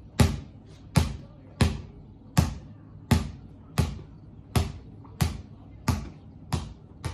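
Basketball dribbled on a hard tiled floor in a steady rhythm: about ten sharp bounces, one every two-thirds of a second or so, each ringing briefly in the hall.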